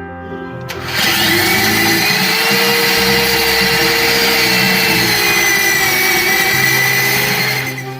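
A high-speed power buffer grinding down the cured repair rubber on a tire's inner liner. It starts about a second in, runs steadily with a whining tone, and stops just before the end.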